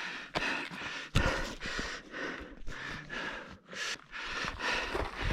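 A climber panting hard, quick heavy breaths while scrambling up steep volcanic rock, with sharp knocks of boots or hands on rock, the loudest about a second in.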